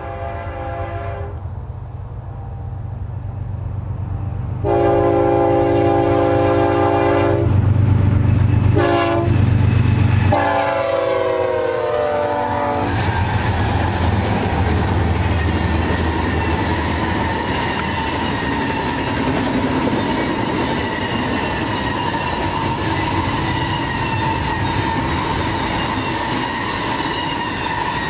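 BNSF GE ES44C4 diesel locomotives sounding their multi-note air horn as they approach and pass: a short blast, a long one, a short one and a final long one whose pitch drops as the locomotives go by, over a deep engine rumble. After that the double-stack well cars roll past with steady wheel clatter and a faint high ringing from the wheels.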